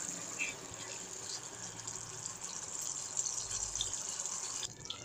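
Thick chilli-garlic sauce simmering in a pan: a steady soft sizzling hiss with a few faint pops. It cuts off suddenly near the end.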